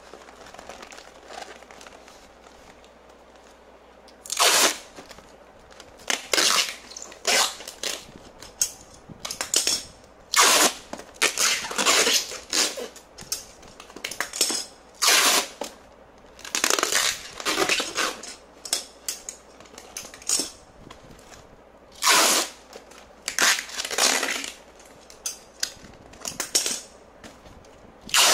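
Packing tape being pulled off the roll and pressed onto a cardboard box: many short, loud rips, one after another at uneven intervals, beginning about four seconds in.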